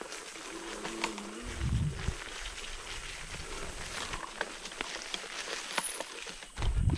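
Rustling and crackling of leaf litter and twigs as a person moves through rough forest ground, with scattered sharp clicks. A short low pitched tone comes about a second in, and low thumps come about two seconds in and near the end.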